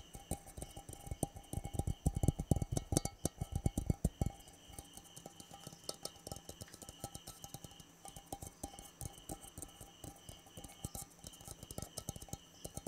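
Very fast, aggressive tapping on a hard object, many taps a second. The taps turn heavier and louder, with deep thuds, from about a second and a half to four seconds in, then go on lighter.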